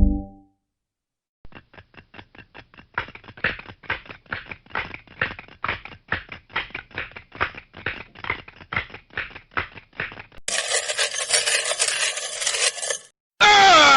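A rapid, irregular run of sharp clicks, about four a second, like keys being struck. It is followed by about two and a half seconds of hissing noise, and a loud falling tone begins near the end.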